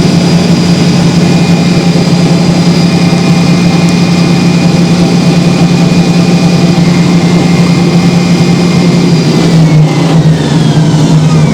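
Hoover Spinarinse 3012A spin dryer spinning at full speed: a loud steady hum with a thin high whine. About ten seconds in, the whine starts to fall in pitch as the drum begins to slow.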